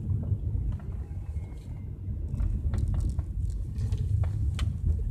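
Low rumble of a Volvo car's engine and tyres on wet tarmac at low speed, heard inside the cabin, with scattered sharp ticks throughout.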